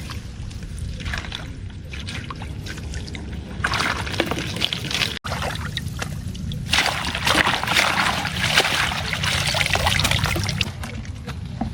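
Water trickling and splashing, getting louder for a short stretch a few seconds in and again for several seconds in the second half.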